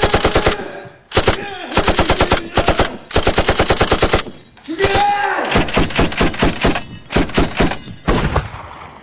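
Automatic gunfire in repeated bursts of about half a second to a second each, at roughly ten shots a second, with short gaps between bursts, dying away near the end.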